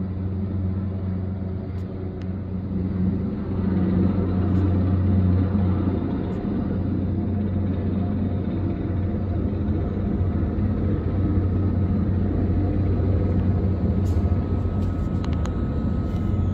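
Helicopter hovering overhead while lifting a load on a long line, its rotor and engine making a steady low drone that grows a little louder a few seconds in. A few sharp clicks come near the end.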